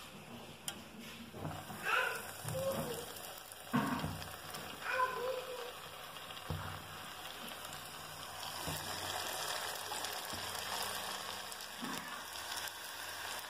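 Breaded onion rings deep-frying in hot oil: a steady bubbling sizzle that swells a few seconds in as the oil foams around the rings, with a few brief knocks along the way.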